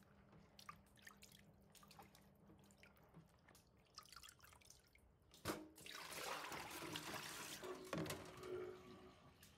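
Water dripping faintly in a stainless-steel kitchen sink as fish pieces are rinsed in a plastic tub. About halfway through there is a knock, then water splashes out of the tub for about two seconds, and a second knock follows near the end.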